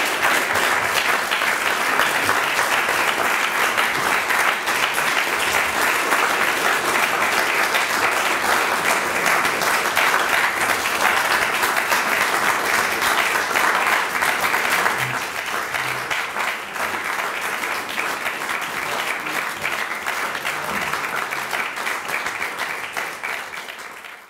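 A small roomful of people applauding at the end of a poetry reading, many hands clapping in a dense, steady patter. It thins a little after about fifteen seconds, then cuts off suddenly at the end.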